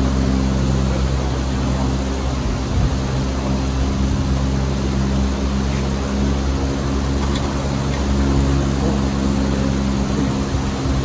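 A loud, steady engine drone that holds an even pitch throughout and cuts off suddenly at the end.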